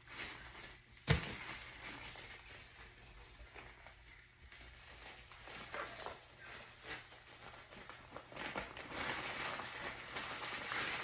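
Packaging rustling and being handled as accessories are unpacked from the box, with a sharp knock about a second in. The rustling grows louder near the end.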